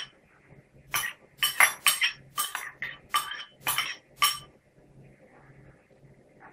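A spoon clinking and scraping against a ceramic bowl as sweetcorn is pushed out of it into a glass salad bowl. There are about a dozen quick, irregular clinks, and they stop a little after four seconds in.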